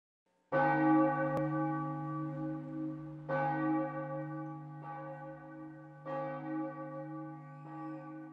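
Church bell tolling, about five strokes at uneven intervals. Each stroke rings on with a slow decay into the next, over a steady low hum.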